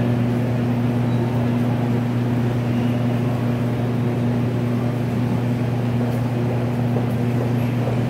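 Steady low machine drone: a deep hum with a second tone an octave above, even and unchanging.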